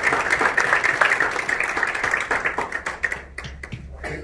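Audience applauding, a dense patter of many hands clapping that thins out and fades about three seconds in.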